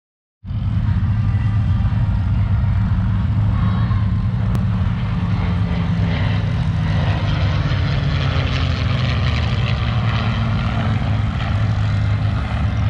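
Aircraft engines droning as two airplanes fly a low pass together, a loud steady rumble with a slight downward slide in pitch midway as they go by.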